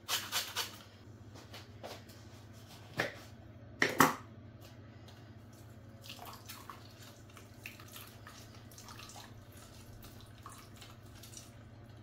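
Orange squeezed by hand over a glass bowl of beaten eggs, the juice dripping in. Several quick taps in the first second and two louder knocks about three and four seconds in, then faint scattered drips over a low steady hum.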